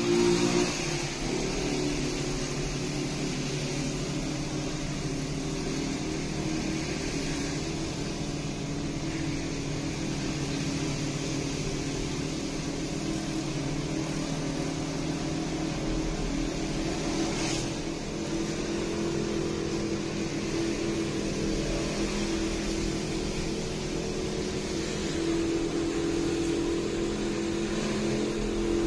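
Steady engine drone with road noise, heard from inside a car cabin while the car is towed at low speed behind a motorcycle cart. There is one brief sharp noise about two-thirds of the way through.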